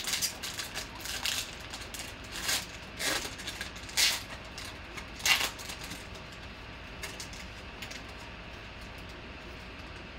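Foil wrapper of a 2021 Panini Spectra baseball hobby pack crinkling and tearing as it is ripped open by hand. There are several sharp rustles, the loudest about four and five seconds in. After that only faint handling clicks remain over a steady low hum.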